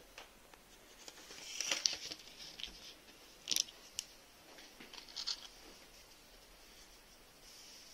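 Faint, brief rustles and crackles with a few sharp clicks from craft materials being handled on a table, the loudest about a second and a half to two seconds in and more near the middle.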